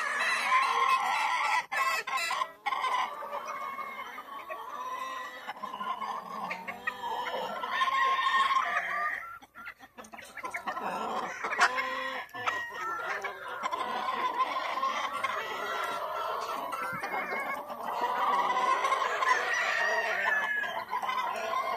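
Gamefowl chickens calling over one another almost without pause: overlapping clucks, with roosters crowing in long held calls.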